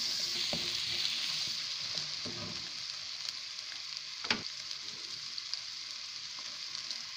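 Onion-and-spice masala sizzling in hot oil in a metal karahi as it is stirred with a spatula: a steady frying hiss that fades a little, with a few light scrapes and one sharp knock about four seconds in. The masala is in the last stage of bhunao, nearly fried through.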